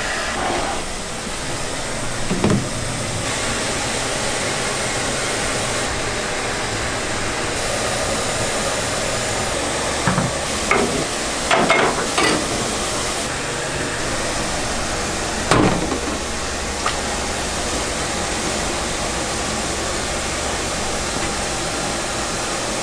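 Steady machine and workshop noise in a rice-cake mill, broken by a few sharp metal knocks and clanks, with a cluster of them about halfway through as steel parts of the rice-cake extruder are handled.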